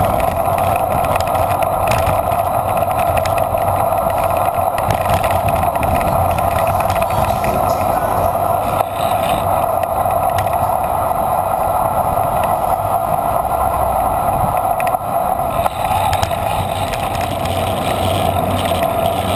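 Steady wind and road noise picked up by a camera on a moving bicycle.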